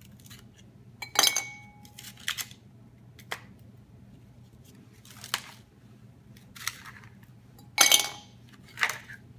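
Ice cubes popped from a plastic tray dropping one by one into an empty 1000 ml glass beaker: a string of about seven sharp clinks with a brief glassy ring, the loudest about a second in and near the end.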